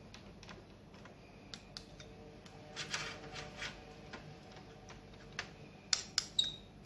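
Light clicks and taps of a metal teaspoon against fluted metal tart tins and the baking tray as apricot jam is spooned into the pastry shells. A few sharper clinks come near the end, one ringing briefly.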